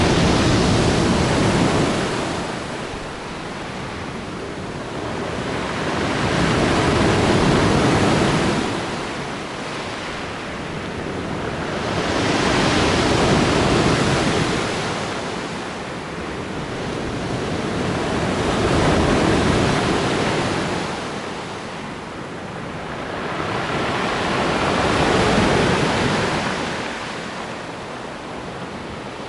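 Sea surf: waves break and wash ashore, the noise swelling and fading about every six seconds.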